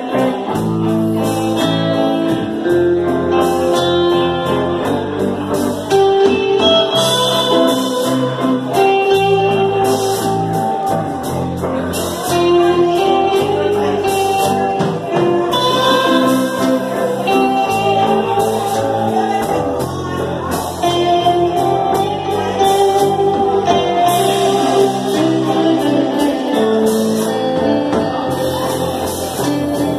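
A live band playing a rock number: electric guitars and bass over a drum kit, with a voice singing.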